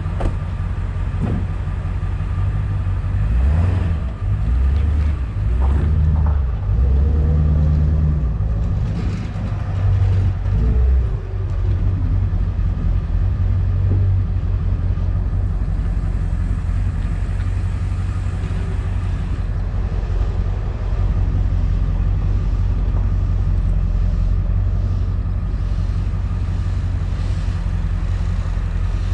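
Ford F350 Super Duty dually pickup's engine running as the truck manoeuvres, its engine speed rising and falling a few seconds in, then running evenly.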